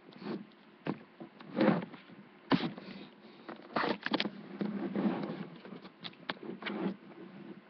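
A dishwasher rack being knocked and scraped about on a hard floor: irregular clattering rattles and scrapes of varying loudness.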